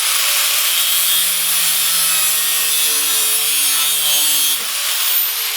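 Power tool cutting through an old steel saw blade, making a steady, harsh hiss. The cut ends about four and a half seconds in, and the tool's high whine then falls as it spins down.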